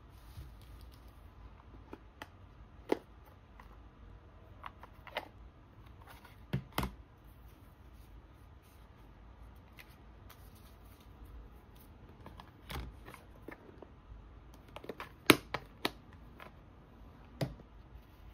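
Photocards being handled and slid into the card-slot pockets of a binder's inside cover: scattered light taps, clicks and rustles of card, with a few sharper taps, the loudest near the end.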